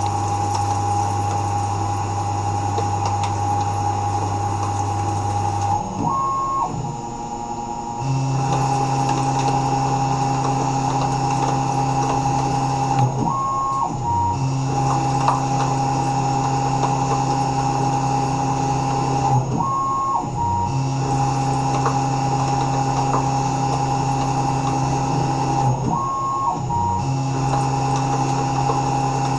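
Tormach 1100 mill spindle turning a steel blank in a chuck as a vertical lathe: a steady motor whine with cutting noise. The pitch steps up or down at the start of each pass, roughly every six seconds.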